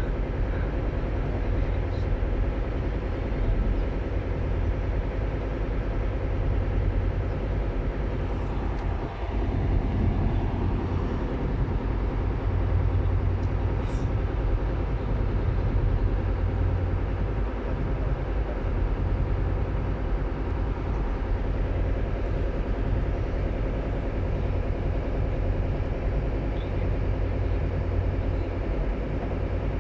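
Ship diesel engines running with a steady low drone.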